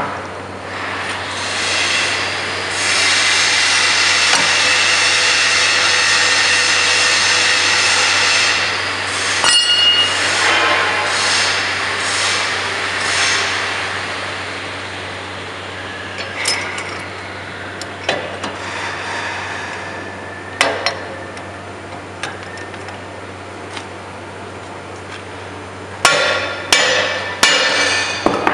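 Metal clinks and knocks of tools and steel parts while a ladle friction brake's spring, nut and shaft are worked on, with a cluster of sharp clinks near the end. For several seconds in the first third a steady mechanical noise runs under them.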